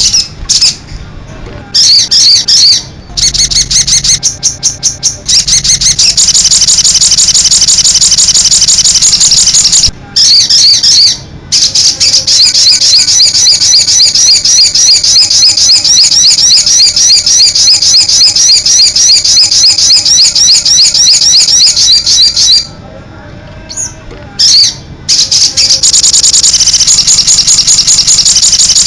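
A sogon bird singing gacor: long runs of fast, loud, chattering repeated notes, high in pitch, broken by a few short pauses.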